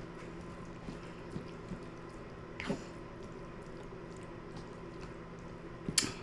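A metal fork stirring through creamy fettuccine alfredo in a bowl: soft, wet squishing with faint scrapes. A sharper click near the end.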